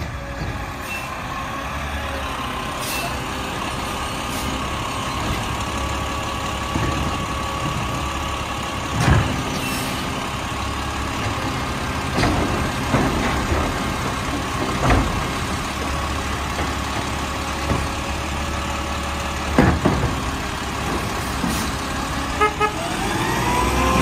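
Mack LR garbage truck's diesel engine running steadily with a faint whine from its hydraulics while the Labrie Expert body's cart tipper lifts and empties recycling carts into the hopper. Several sharp clanks and thuds come as carts are banged against the hopper, and near the end a rising whine sets in as the engine revs up.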